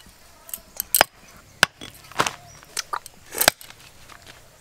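Cleaver chopping bone-in raw goat meat on a block: a run of sharp, uneven chops, about eight in four seconds.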